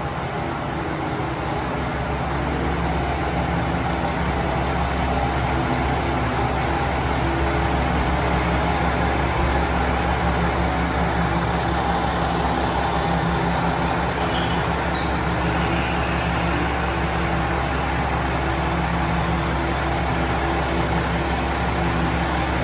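JR KiHa 120 diesel railcar beside the platform, its diesel engine running with a steady drone. A few brief high squeals come about two-thirds of the way through.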